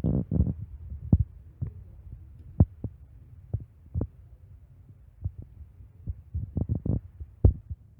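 Irregular low thumps and knocks, about a dozen scattered sharp hits over a faint low rumble, like handling and bumping noise close to the microphone.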